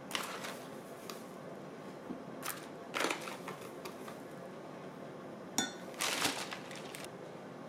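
Kitchen utensils and bowls being handled: a handful of short scrapes and clinks, one of them ringing briefly about five and a half seconds in.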